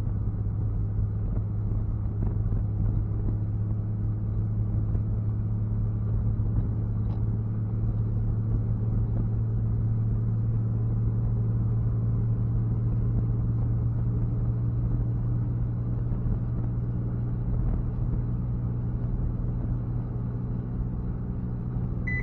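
Supercharged Kubota D722 three-cylinder diesel droning steadily at full throttle in fifth gear, heard from inside the car's cabin with road noise, as the car slowly gains speed. The engine is held back by a fuel rack limiter that stops the governor from opening the fuel rack fully.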